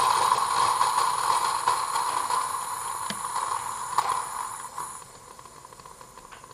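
Bosch Tassimo pod coffee machine brewing into a mug: a steady hissing, gurgling rush of hot water with a couple of clicks, fading away after about five seconds as the brew finishes.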